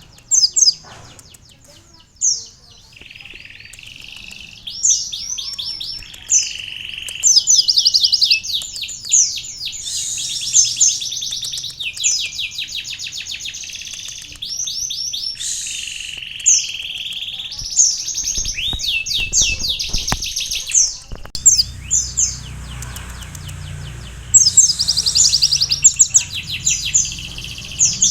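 Olive-backed sunbird (kolibri ninja) singing a fast, varied song of rapid high trills and rattling phrases broken by short pauses, with canary-style phrases learned from tutoring.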